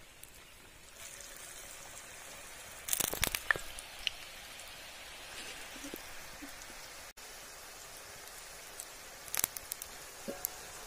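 Potato murukku frying in a kadai of hot oil: the oil starts sizzling steadily about a second in as the dough goes in, with a few sharp clicks, a cluster about three seconds in and another about nine seconds in.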